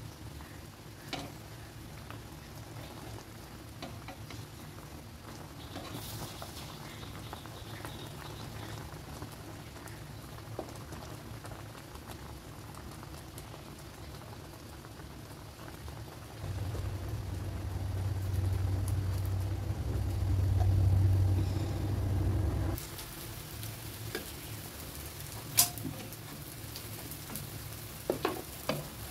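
Raw mango pieces boiling hard in a frothing liquid in a frying pan, a steady bubbling and sizzling. In the second half a low hum comes in for about six seconds and cuts off suddenly, and a few sharp clicks follow near the end.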